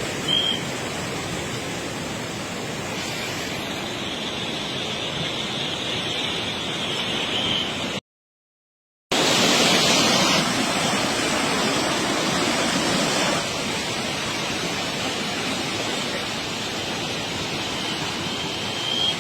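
Heavy rain pouring: a steady, even hiss. It drops out for about a second near the middle and comes back louder for a few seconds.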